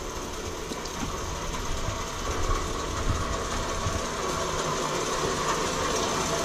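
A steady low engine rumble, growing slowly louder.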